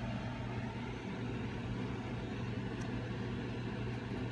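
A steady low mechanical hum with an even, unchanging pitch, and a faint tick about three seconds in.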